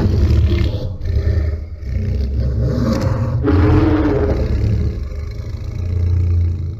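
Godzilla monster sound effect: a long, deep rumbling growl-like breath with a wavering low pitch, dying away near the end.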